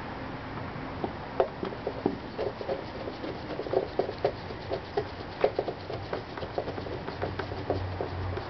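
Phillips screwdriver threading a screw into the scooter's plastic air filter housing by hand, making a string of small irregular clicks, several a second. The screws are being run in loosely, not yet tightened down.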